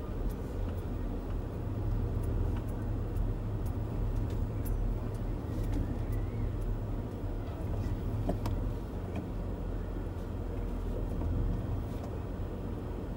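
Car's engine and road rumble heard from inside the cabin while driving slowly, a steady low drone with a few faint scattered clicks.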